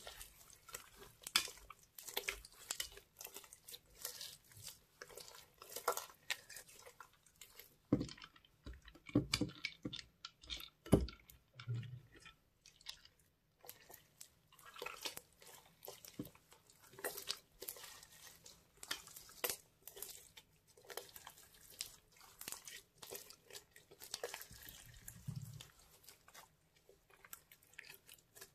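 Sticky pink slime mixed with small beads being stretched, folded and squeezed by hand, giving a constant run of wet clicks, pops and crackles.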